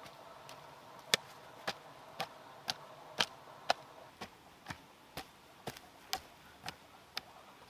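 Hand hoe chopping into dry, clumpy soil in a steady rhythm, about two sharp strikes a second.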